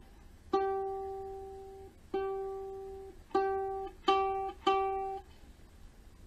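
Kala Ukadelic soprano ukulele, one string plucked five times at the same pitch. Each note rings and fades. The first two are left to ring longer, and the last three come quicker and are cut shorter, as the new strings are being tuned.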